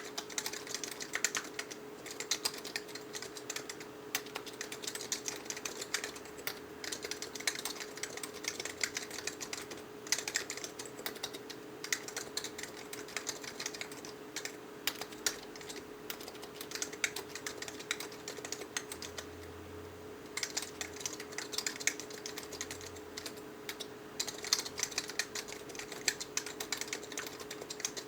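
Continuous typing on a mechanical keyboard with Matias quiet non-click Alps-style switches: a steady stream of soft, damped keystrokes with no click leaf, pausing briefly about two-thirds of the way through. A faint steady hum runs underneath.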